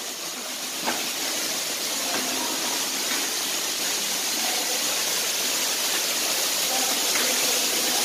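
Steady rushing of an underground cave waterfall, growing slowly louder.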